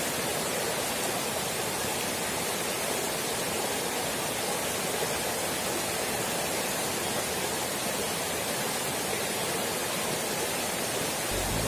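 Small rocky forest stream rushing and splashing over stones in a steady, even wash. Music comes in right at the end.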